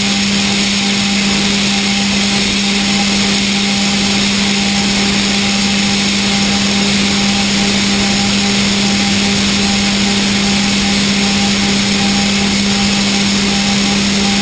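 Okuma GENOS M560V vertical machining center finish hard-milling D2 tool steel hardened to 62 Rc: a steady, unchanging hum with a hiss over it.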